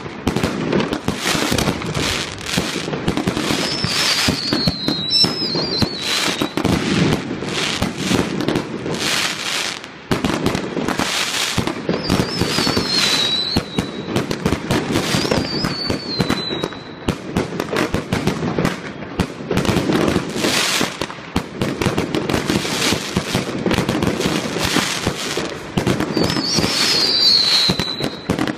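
Professional fireworks display: a dense, continuous barrage of shell bursts and crackling. Four times, a high whistle falls in pitch over the bangs.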